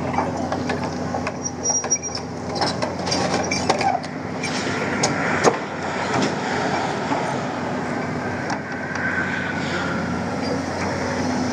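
Hyundai excavator's diesel engine running steadily under work, with scattered sharp metal knocks, the loudest about five and a half seconds in.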